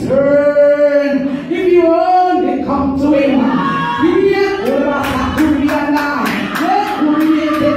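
A woman singing a gospel hymn solo into a microphone, unaccompanied, in long held notes. Regular sharp claps come in about halfway through.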